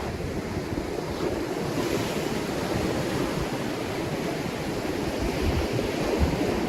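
Ocean surf washing steadily onto a shore, with a wave swelling up about two seconds in. Wind buffets the microphone with a low rumble.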